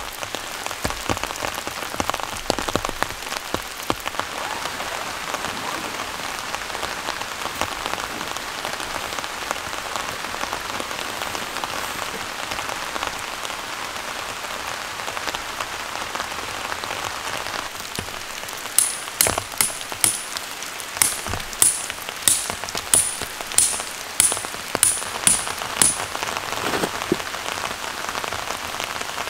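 Steady rain falling on the ground and tent. Near the end comes a run of about a dozen sharp ringing taps, roughly two a second.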